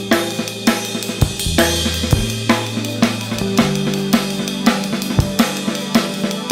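Live band playing: a drum kit keeps a steady beat of kick, snare, hi-hat and cymbals under held electric bass notes and keyboard chords.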